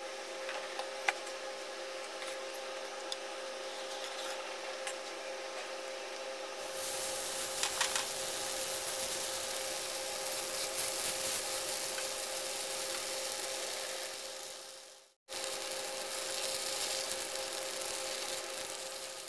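Roti dough hissing as it cooks on a hot iron tawa, with rubbing and scraping as it is pressed down, over a steady hum. The hiss starts about six or seven seconds in, and the sound cuts out briefly once near the end.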